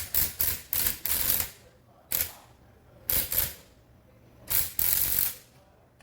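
Impact wrench fired in a run of short, irregular bursts on the 19 mm top nut of a shock absorber, loosening the nut that holds the coil spring on the shock.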